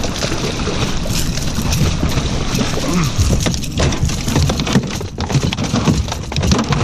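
A bluefish splashing at the surface and thrashing as it is lifted out on the line and swung into a boat's fish well, with sharp knocks against the hull and the other fish, over steady wind and water noise.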